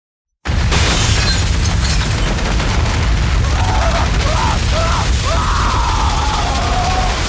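Earthquake sound effect cutting in abruptly after a moment of silence: a loud, steady deep rumble with crackling and crashing debris. About three seconds in, a person's panicked screaming rises over it.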